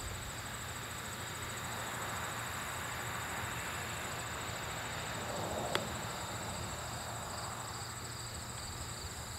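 Crickets and other insects chirring steadily in a high, evenly pulsing drone, with one faint click a little past halfway.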